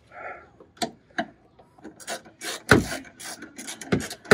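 Ratchet wrench working a bolt under a car: a run of irregular clicks and rattles, with two louder knocks, one about three seconds in and one near the end.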